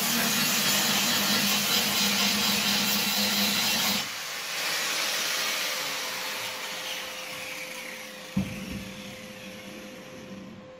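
Angle grinder running against sheet metal, switched off about four seconds in; its whine then falls steadily as the disc spins down. A single knock comes near the end.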